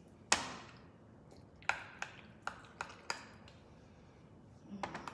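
A spoon knocking and clinking against a glass jar of thick sauce: one sharp knock, then five quick light taps over about a second and a half, with a few faint clicks near the end.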